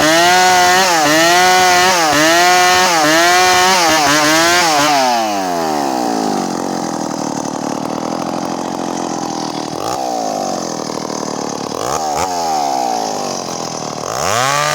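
Stihl MS 382 two-stroke chainsaw ripping through medang wood at high revs, its pitch sagging and recovering about once a second as the chain bites. About five seconds in the engine falls back to a low idle and is blipped twice, then it revs up again near the end.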